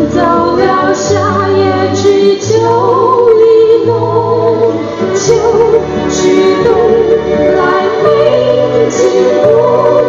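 A Mandarin pop song playing: a female voice singing a melody over a bass line that moves about once a second, with occasional cymbal-like percussion strokes.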